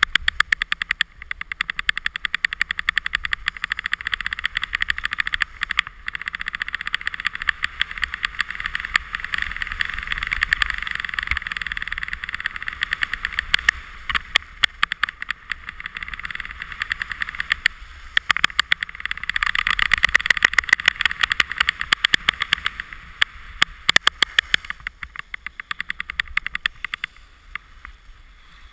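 Alpine skis scraping and chattering over packed, groomed snow at speed, a steady hiss full of rapid clicks from the edges. It surges in two stretches and grows quieter near the end.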